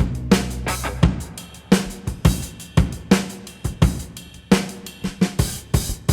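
Rock music: a drum-kit passage of kick, snare and cymbal hits in a steady beat, after the held guitar and bass chords drop out at the start.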